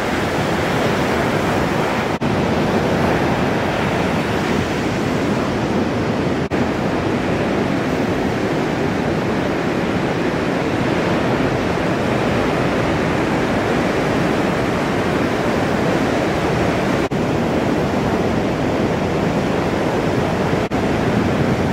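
Ocean waves breaking on a reef point: a loud, steady wash of surf. The level briefly dips four times.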